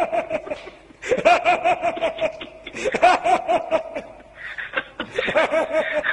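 A man laughing hard in repeated bouts of quick ha-ha pulses, with short breaks between the bouts.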